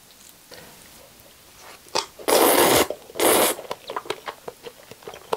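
Two loud slurps of saucy instant jjajang noodles being sucked in through the lips, the first about two seconds in and the second half a second later, followed by quick wet chewing clicks.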